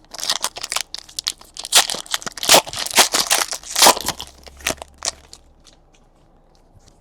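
Plastic trading-card pack wrapper crinkling and tearing as a pack is ripped open. Dense crackling for about five seconds, then it stops.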